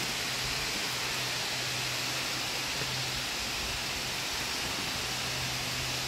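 Steady, even hiss of a waterfall, water falling down a rock face.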